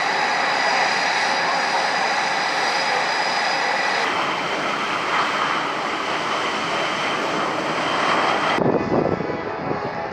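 Jet engines of Blue Angels F/A-18 Super Hornets running on the ground: a loud, steady turbine rush with high whistling tones. About three-quarters of the way through it cuts to a duller, lower, wavering sound of an aircraft in flight.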